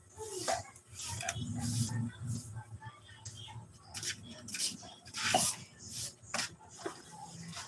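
Soft grass broom sweeping a concrete floor, a series of short brushing strokes about one or two a second.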